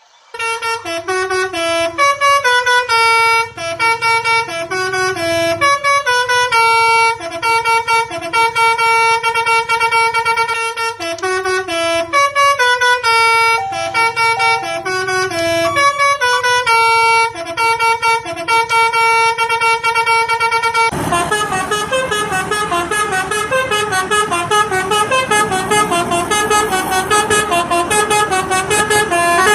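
Telolet multi-tone musical horn playing a tune of short, stepped notes, starting about half a second in. About two-thirds of the way through it switches to a faster, busier run of notes over a louder rushing noise.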